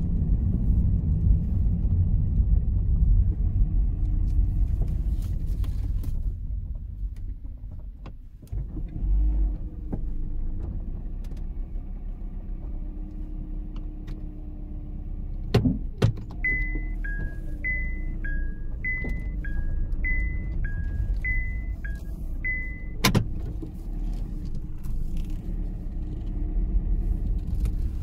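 A car driving, heard from inside the cabin: steady low tyre and engine rumble that eases off for a few seconds and then picks up again. In the middle a run of short electronic beeps alternates between a higher and a lower pitch for about six seconds, opening and closing with a sharp click.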